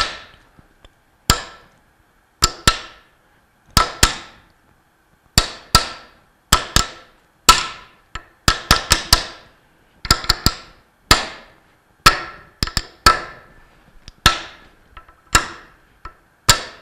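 Claw hammer tapping the inner ring of a new ball bearing to start it square onto a Bell & Gossett Series 1510 pump shaft. The metal-on-metal taps come at an uneven pace, often in pairs or quick runs of three or four, each with a short metallic ring.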